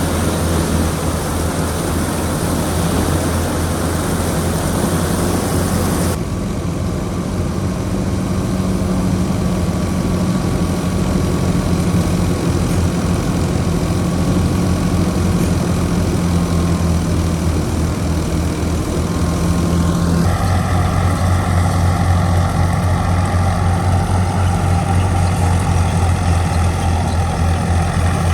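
Al-Ghazi tractor's diesel engine running steadily at full power, driving a wheat thresher through a belt, a loud continuous mechanical drone. The sound changes abruptly about six seconds in and again near twenty seconds.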